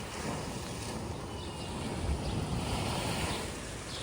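A steady rush of water with wind buffeting the microphone, swelling louder for about a second past the middle.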